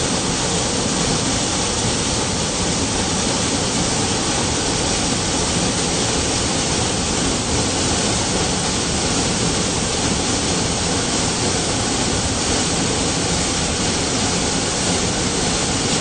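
Large waterfall, water falling and crashing in a steady, loud rush with no let-up.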